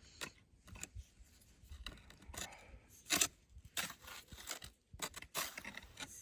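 Close, irregular rustling, scraping and crunching as a person shifts position and handles gear while sitting in snow, trying to get settled, with one louder scrape about three seconds in.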